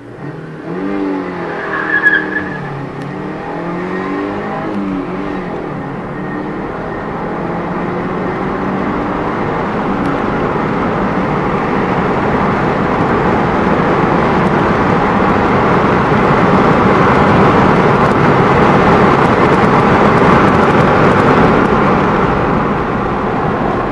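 Kia Magentis GD's 2.0-litre four-cylinder engine, without a catalytic converter, under hard acceleration, heard inside the cabin: the engine note rises and drops several times in the first few seconds as the gears change, with a brief high squeal about two seconds in. After that the engine and road noise build steadily louder as speed climbs.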